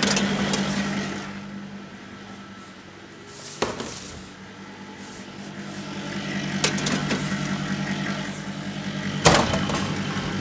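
Steady machine hum of a commercial kitchen, with a sharp click about a third of the way in and a louder knock near the end as a convection oven's door is opened and shut around a baking tray being loaded.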